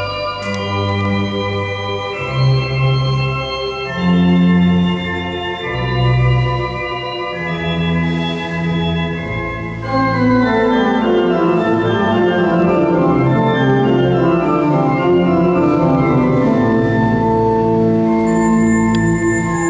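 Pipe organ playing: held chords over a moving bass line. About ten seconds in it gets louder, with a long run of notes stepping downward over sustained chords.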